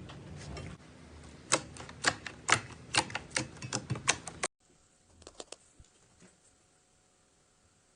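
Slime being pressed and squeezed by hand, giving a run of sharp clicking pops, about two or three a second. It cuts off abruptly about halfway through, leaving only a few faint clicks.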